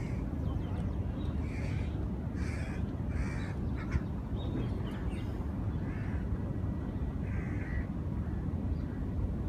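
A bird calling, a short call about six times at uneven gaps, over a steady low background rumble.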